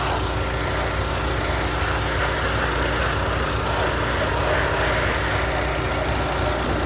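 Hot water pressure washer running steadily, its engine-driven pump humming under an even hiss.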